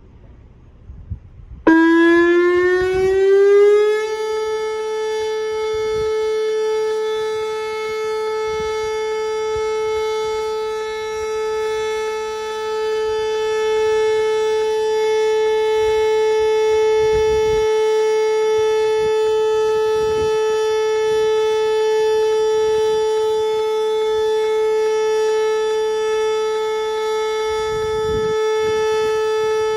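Whelen WPS electronic outdoor warning siren starting its signal: the tone comes on abruptly a couple of seconds in, rises in pitch for about two seconds, then holds one loud, steady pitch.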